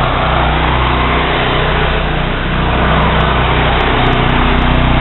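Two 13 hp single-cylinder Honda engines running steadily together, each driving a pressure washer pump.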